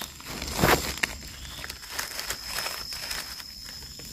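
Dry fallen leaves crunching and rustling as they are disturbed, with a sharper crackle about two-thirds of a second in, over a steady high-pitched insect drone.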